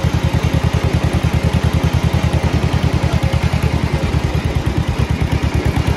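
John Deere M tractor's vertical two-cylinder engine running steadily under way, with an even exhaust beat of about ten pulses a second.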